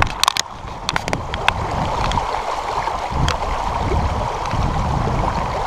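Shallow river water rushing steadily over a pebble bed close by, with a few small clicks in the first second and a half.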